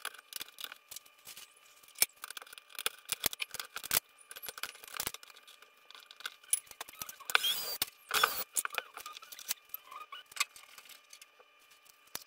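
Gloved hands working wires and breakers in a small metal load center box: a run of light clicks, knocks and rattles, with two longer scraping rustles a little past the middle.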